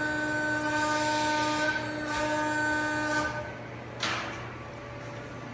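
8-ft 145-ton CNC servo press brake whining steadily as its ram makes a bend; the whine stops about three and a half seconds in, and a short sharp noise follows about half a second later.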